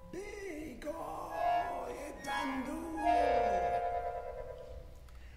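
Quiet contemporary chamber music for voices, violin, clarinet, accordion and cello: wordless sliding vocal lines, then a held chord with a fast wavering from about three seconds in.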